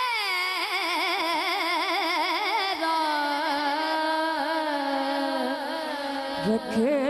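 A boy singing a naat into a microphone, drawing out one long ornamented note that wavers strongly and slides down in pitch, then settles into a steadier held tone. Near the end he breaks off briefly and starts a new phrase.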